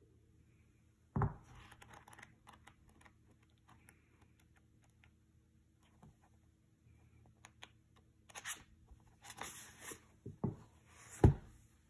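Paper pages of a softcover book being turned and handled, with rustling and a few soft knocks; the loudest thump comes near the end as the book is closed and handled.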